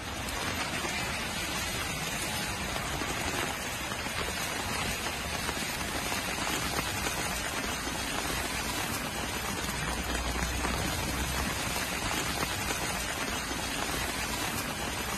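Heavy rain falling steadily on wet pavement and a flooded street, a dense even hiss of rain with splashing.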